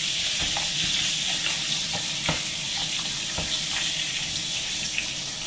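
Slices of pork belly sizzling steadily in oil in a nonstick frying pan, stir-fried on low heat to render their fat. A few light clicks come from wooden chopsticks tapping the pan as the pieces are turned.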